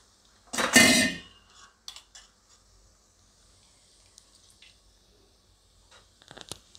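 Chili paste thinned with water poured from a bowl into a kadai of hot spiced oil: a short loud burst as it goes in about a second in, then a steel spoon scraping and tapping against the bowl several times over a faint steady hiss.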